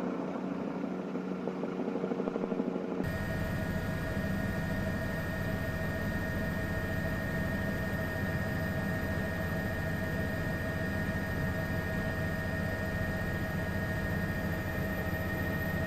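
A vehicle engine idles for about three seconds, then cuts abruptly to the sound of a helicopter in flight: a steady low rotor rumble with a high turbine whine.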